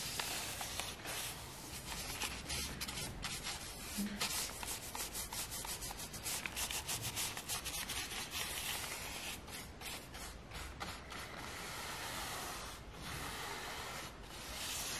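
Paintbrush bristles scrubbing back and forth on a stretched canvas: a dry, scratchy rubbing in many quick strokes, turning smoother and steadier near the end.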